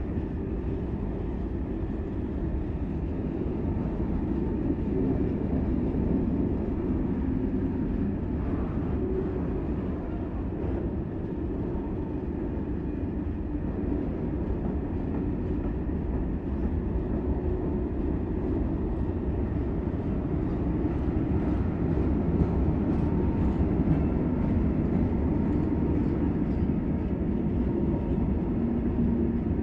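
Freight train of covered hopper wagons rolling past at a steady speed: a continuous rumble of wheels on rails, with faint clicks in the later part.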